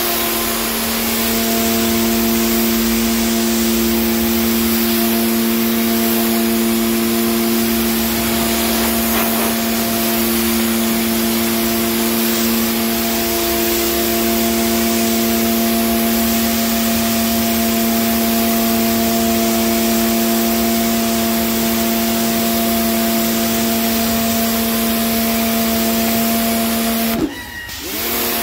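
Electric pressure washer running steadily, its pump motor humming under the hiss of the water jet spraying the floor tiles. Near the end the trigger is let go: the motor cuts out briefly and spins back up as spraying resumes.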